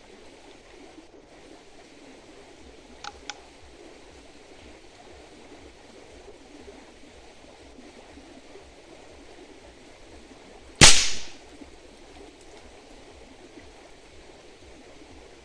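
A single shot from a .22 PCP air rifle firing a 36-grain slug: one sharp report about eleven seconds in, trailing off over about half a second. Two faint clicks come about three seconds in.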